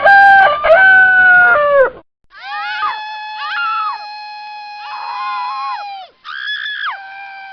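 A rooster crowing loudly in three held parts, the last falling away. After a short break comes a long stretch of a man and woman screaming, with cries falling in pitch over a held high scream. Near the end a woman lets out a new, sharply falling scream.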